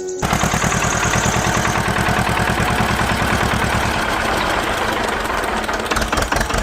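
A small motor-driven tool running steadily with a fast, even pulsing chatter. It starts abruptly and holds the same speed throughout.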